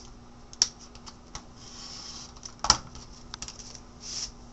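Scattered light clicks and taps of a rotary cutter and acrylic ruler being handled on a cutting mat over a paper foundation pattern, with brief swishes of paper; one sharper knock comes a little past halfway.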